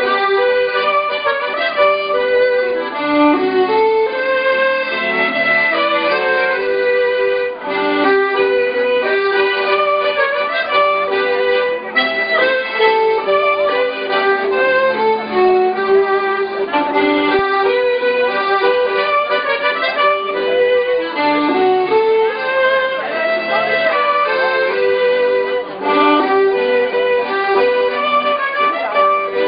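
Folk dance music: a melody of held notes on fiddle and accordion, playing without a break.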